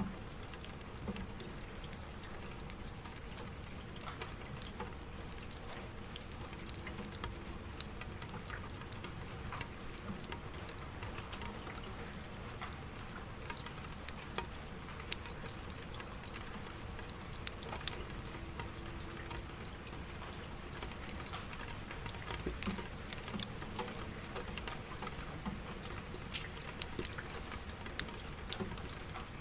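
Rain falling steadily, with individual drops ticking sharply at irregular moments over the even hiss.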